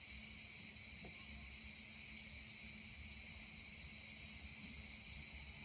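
Steady high-pitched chorus of insects chirring without a break, over a low rumble, with one faint tap about a second in.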